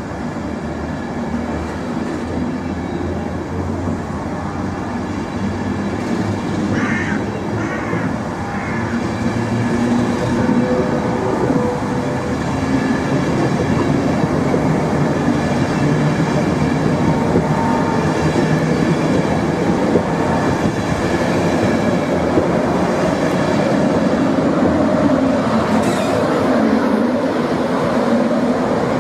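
A train running: a steady rumble that grows gradually louder over the first half and then holds.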